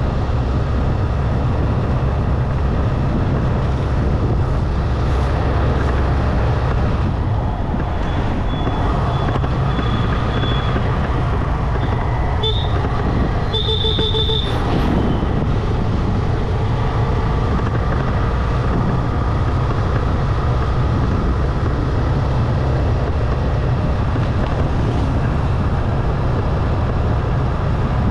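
Steady low rumble of wind and road noise from riding along a busy town road in traffic. A vehicle horn toots a few times a little before halfway through.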